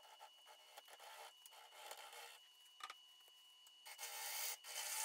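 A bowl gouge cutting a spinning spalted sugar maple bowl blank on a wood lathe, rough-turning it. The shavings come off as irregular scraping hisses, with louder, longer cuts about four seconds in, over a faint steady high whine.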